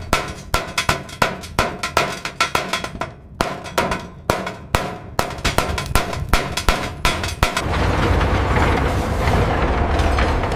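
Rapid, uneven series of metal hammer strikes on hot metal, about three to four a second, each with a short ringing clang. About seven seconds in they give way to a steady low rumbling roar.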